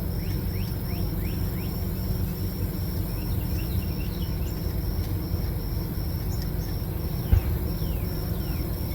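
Steady low rumble with crickets chirping in a high, even pulse over it, and a single knock about seven seconds in.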